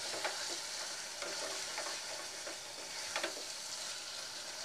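A thick, nearly dry chicken and potato curry sizzles in a kadai as a spatula stirs it. Short spatula scrapes against the pan come every second or so.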